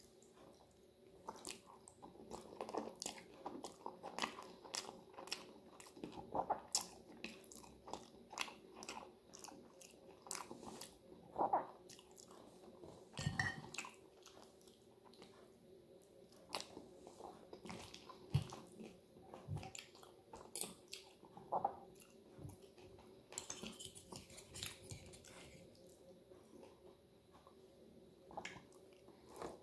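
A person eating spaghetti carbonara close to the microphone: chewing and mouth sounds, with irregular sharp clicks of a fork and spoon against the plate.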